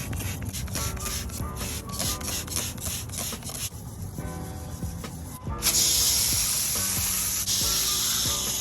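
Wheel rims being scrubbed in rapid rough strokes over background music, then about halfway through a loud steady hiss of water spraying on the rims starts suddenly and keeps going.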